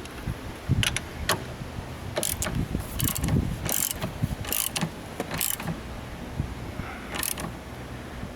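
Irregular metallic clicks and clanks of hand tools, ratchet-like, at work on a car battery's fittings.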